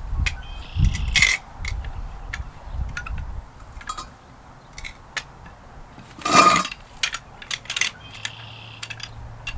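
Metal clicks and clinks of a car jack being worked and lowered, with one louder clank about six and a half seconds in.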